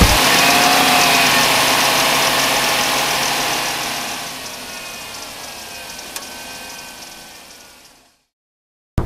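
A vehicle engine running, fading steadily away over several seconds to silence.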